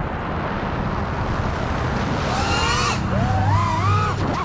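FPV drone's electric motors and propellers in flight: a rushing hiss, then from about two seconds in a whine that rises and falls in pitch again and again as the throttle is worked.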